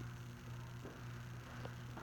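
Faint room tone: a steady low hum under a light hiss, with a couple of faint clicks.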